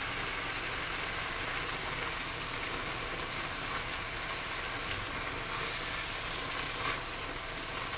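Pan of vegetables and milk sizzling steadily over high heat, with a couple of light knocks from stirring.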